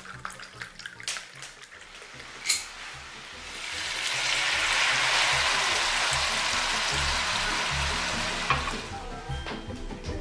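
Red wine poured over pieces of hare and vegetables browning in a hot pan, sizzling as a loud, even hiss that starts about three and a half seconds in and dies down after about five seconds. Before it, a few light clinks and splashes of wine being poured into a glass.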